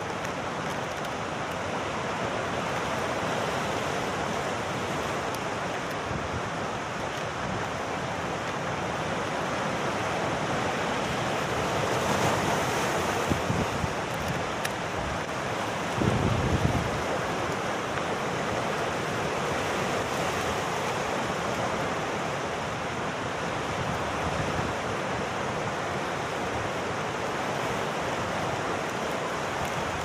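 Sea surf washing and breaking among coastal rocks, a steady rushing wash that swells louder about halfway through, with a low thud a little after.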